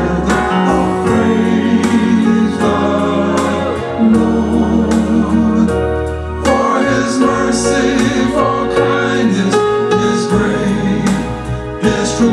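Gospel praise music: voices singing held, drawn-out lines over keyboard accompaniment with a steady beat.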